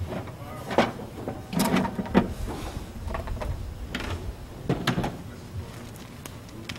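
Hard plastic Hilti tool case being shut and moved: a scattering of sharp plastic clicks and knocks as the lid closes, its latches snap and the case is set down.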